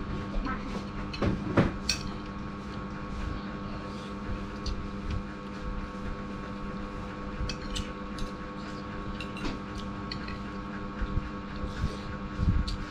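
Metal spoon clinking and scraping against soup bowls, with eating and chewing sounds, over a steady hum.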